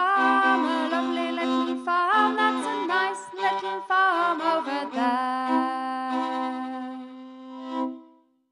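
The last line of an English harvest folk song, sung over steady instrumental accompaniment, closing on a long held final chord that fades out near the end.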